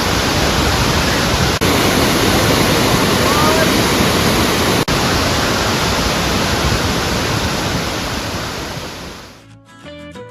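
A tall waterfall, a loud steady rush of falling water. It fades out near the end as guitar music comes in.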